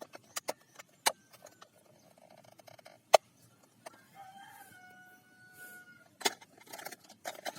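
A series of sharp clicks and clacks, with a drawn-out pitched call lasting about two seconds in the middle, like a crow.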